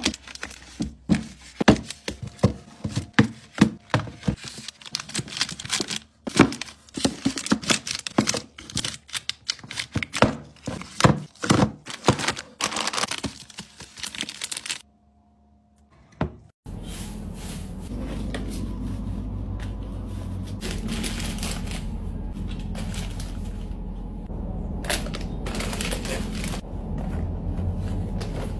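Wrapped chocolate bars being set down and pushed into rows: rapid taps, knocks and crinkling of the plastic wrappers. Partway through, after a brief near-silence, the sound turns to a steady low room hum with occasional crinkles and soft knocks as boxed and packeted sweets are placed into a wicker basket.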